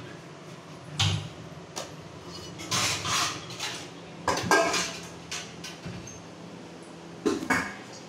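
Kitchen dishes and utensils clattering and knocking as they are handled and set down: a series of separate sharp knocks and rattles, some in quick clusters.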